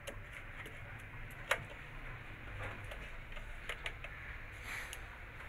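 Light clicks and ticks from wires and a small circuit board being handled against a plastic photo beam sensor housing, with one sharper click about a second and a half in and a few quicker ticks near the end, over a steady low background hum.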